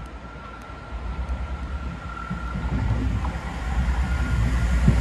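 A diesel multiple unit approaching on the line, its engine and wheel rumble growing steadily louder as it draws near.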